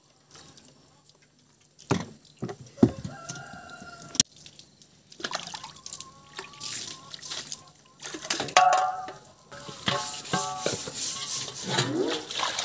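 A rooster crows twice, about three seconds in and again past the middle, with a few short clucks, and there are some sharp knocks early on. In the last few seconds water splashes as it is poured out of a pail and a large metal basin onto the ground.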